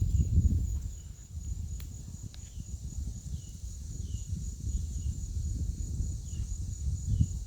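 Gusty wind buffeting the microphone as a storm comes in, over a steady high insect drone and short chirps repeating about once a second.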